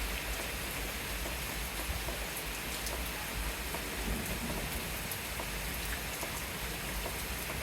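Steady rain falling during a thunderstorm, an even hiss of rain on surfaces with scattered drop ticks.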